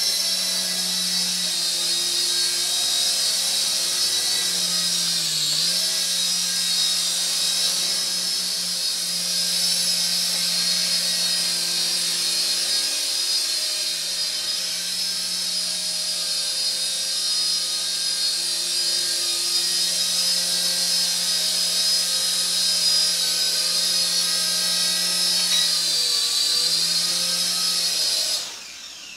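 KY202 toy coaxial micro helicopter's small electric motors and twin rotors whining steadily at a high pitch in flight, with a few brief dips in pitch. Near the end the whine cuts off quickly as the helicopter lands in automatic mode and its motors stop.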